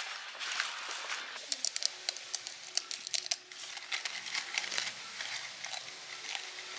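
Plastic snack bag rustling, then a quick run of sharp crisp crackles as keropok fish crackers are handled and broken.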